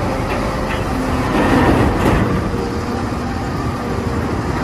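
A heavy vehicle running steadily: a loud, even engine-and-road rumble with a faint hum of steady tones.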